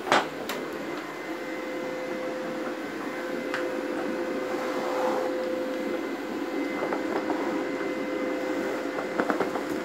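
Steady hum and a faint whine from a running pure-hydrogen electrolysis generator working at about 19 amps, with a sharp knock at the very start and a few light clicks near the end.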